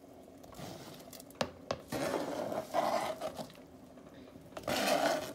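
Chopped onions and green onions scraped and slid off a plastic cutting board into a pot of soup broth, with two sharp knocks about a second and a half in, then scraping from about two seconds in and again near the end.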